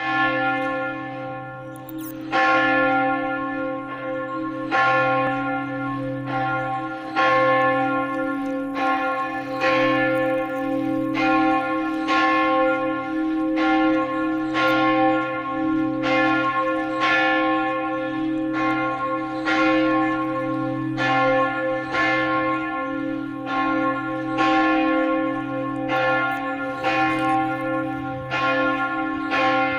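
Church bell ringing, struck about once a second. Each strike rings on into the next over a steady low hum.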